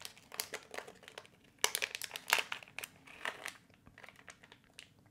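Crinkling of a small silver anti-static plastic bag as hands work thermal pads out of it: irregular crackles that thin out and fade after about three and a half seconds.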